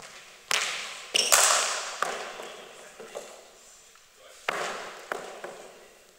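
A series of sharp knocks, each ringing on with a long echo in a large indoor sports hall: cricket balls striking bats, floor and walls in the indoor nets. The loudest knock comes about a second and a half in, with another strong one about four and a half seconds in.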